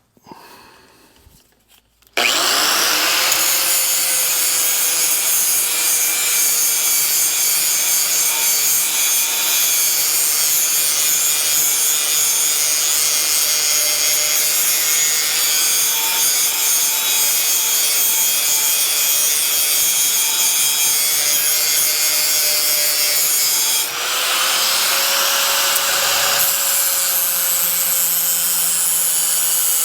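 Electric grinder starting up about two seconds in and grinding the cutting edge of a steel tractor mower blade: a loud, steady grinding hiss over the motor's whine. Near the end it briefly comes off the blade, the whine rising, then goes back on.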